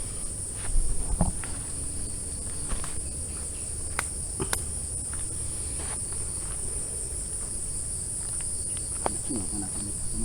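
Steady, high-pitched insect chorus, with a few scattered clicks and knocks.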